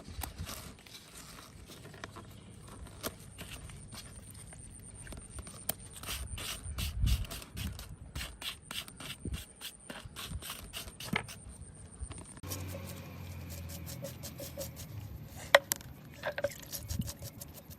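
Scraping and clicking of hand work on metal bicycle parts, with many short sharp ticks.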